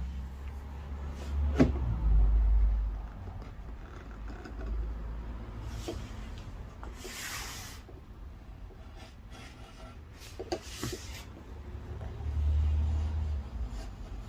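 Flat chisel cutting ginkgo wood: a few short scraping strokes, the longest about seven seconds in, with scattered sharp knocks. A low rumble swells near the start and again near the end, and is the loudest thing heard.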